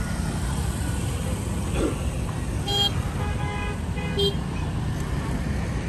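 Busy street traffic with a steady rumble of passing vehicles, and a few short vehicle horn toots around the middle.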